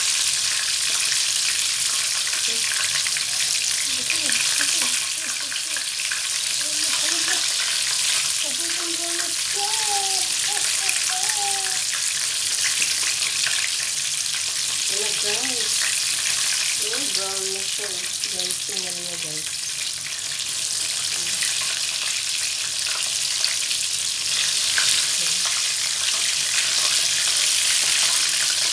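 Breaded chicken pieces sizzling steadily in hot oil in a frying pan.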